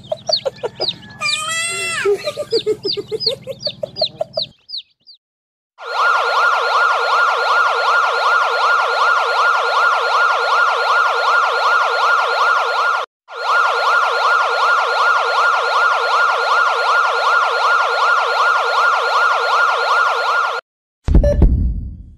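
A chicken clucking and squawking for about four seconds. After a short pause, an ambulance siren with a fast, even warble sounds for about fifteen seconds, cut off briefly once midway. A brief low-pitched sound follows near the end.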